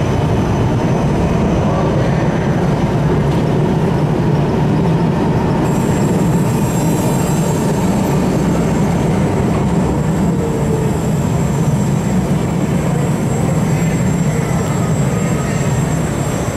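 Articulated tram rolling slowly past close by: a steady rumble of steel wheels on rails. A thin high-pitched tone comes in about six seconds in and holds for about ten seconds.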